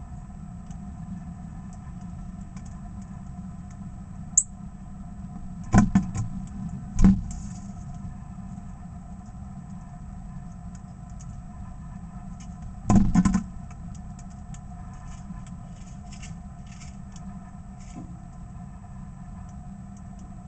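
Knocks on a clear plastic feeder tray as a northern cardinal lands and pecks at sunflower seed, over a steady low rumble. A sharp click about four seconds in, two heavier knocks around six and seven seconds, and a double knock near thirteen seconds.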